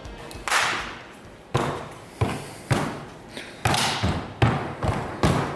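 A series of about eight heavy thumps at irregular spacing, each with a short ringing tail, as force is applied to press a wooden Euro pallet and a fridge together over a thick layer of instant-grab adhesive so that it spreads.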